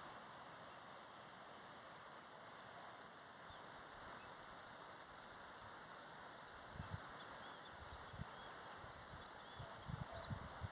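Insects trilling steadily in a high, rapidly pulsed drone. Short higher chirps from another animal come in and out over it from a few seconds in, and a few low thumps are heard near the end.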